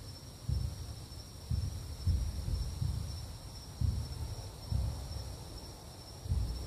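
Deep rumbling booms from an unidentified source, about six at uneven intervals, heard under a clear sky with no thunderstorm. Crickets chirr steadily and high underneath.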